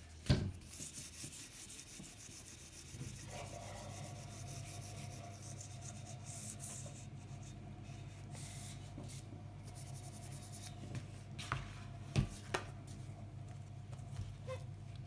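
Hand rubbing on the old blue paint of a vintage steel bicycle frame, with a fast rasping hiss of many short strokes through the first half and a knock near the start and two more about twelve seconds in. A steady low hum sets in about three seconds in.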